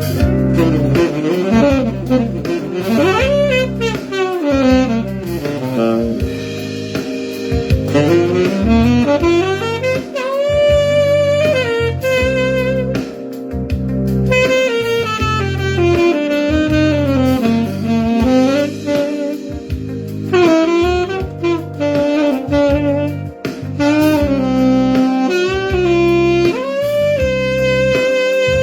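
Tenor saxophone playing a jazzy melody line with fast runs and pitch bends over a jazz accompaniment.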